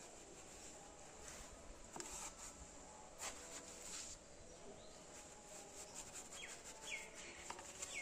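Faint scraping and scooping of damp cement mortar as it is packed into a plastic flower-pot mould with a small trowel, a few separate scrapes. In the second half, a bird gives three or four short falling chirps.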